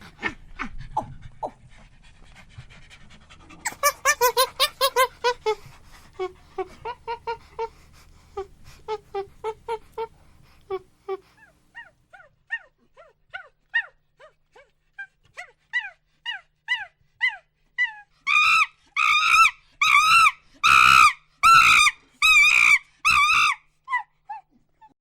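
Chimpanzee pant-hoot: a long run of short rhythmic hoots, several a second, that climb in pitch and grow louder, then break into loud screams near the end.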